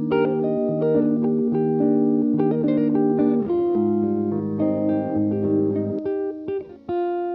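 Background music led by a plucked guitar, with many notes and chords changing quickly and a final note left ringing near the end.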